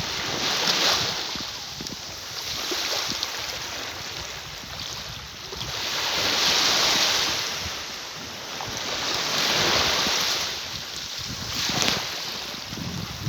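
Ocean waves breaking and washing in, the rush of water swelling and falling away every few seconds, with a low rumble underneath.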